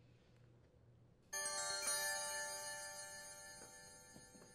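Electronic alert chime sound effect: a bright chime of many tones sounds once about a second in and rings out, fading slowly over about three seconds. It marks the appearance of a 'SHARP' caution warning icon.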